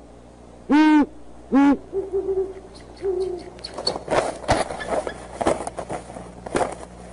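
Great horned owl hooting at close range: two loud, deep hoots, each rising and falling slightly in pitch, then two softer hoots. After them come irregular scratchy rustling noises.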